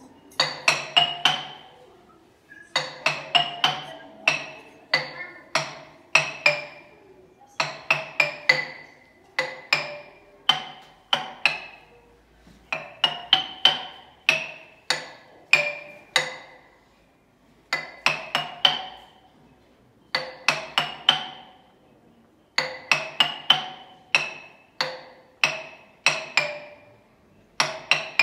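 Pitched mallet percussion, a xylophone-type instrument, playing a melody in short runs of quick struck notes, each run followed by a brief pause.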